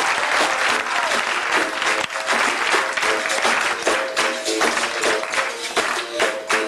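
Live capoeira roda music with rhythmic hand-clapping and short repeated instrument notes, under crowd applause that is strongest in the first seconds.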